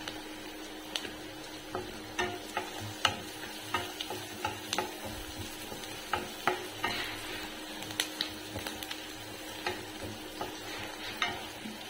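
Wooden spatula stirring diced onions and green chillies frying in oil in a nonstick kadai: irregular knocks and scrapes of the spatula against the pan, a few a second, over a steady sizzle.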